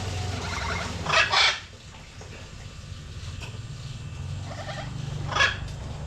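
Chickens clucking and squawking, with two sharp calls about a second in and another near the end, over a steady low hum.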